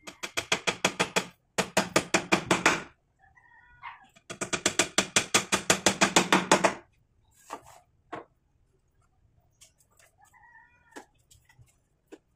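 Claw hammer driving nails into a wooden frame rail: three runs of rapid blows, about seven a second, with a short pause between each run. The third run is the longest.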